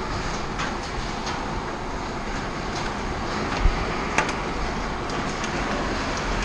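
Heavy rain drumming on a steel shipping-container house, a steady rushing rumble with scattered sharp ticks of drops striking, and a dull thump a little past halfway.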